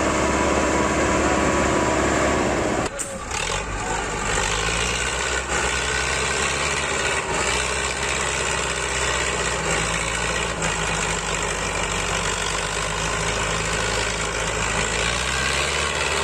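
Massey Ferguson tractor's diesel engine running steadily under heavy load as it pushes a loaded trailer. The sound breaks off abruptly about three seconds in, then the engine carries on.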